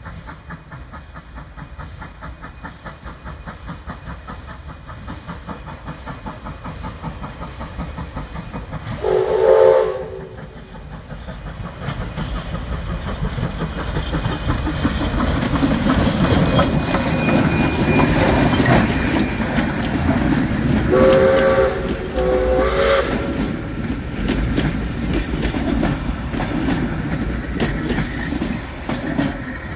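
Steam locomotive M4 working a heritage passenger train, its exhaust beating steadily and growing louder as it approaches. Its whistle sounds once about nine seconds in and twice more, in quick succession, a little after twenty seconds, then the carriages clatter past over the rail joints.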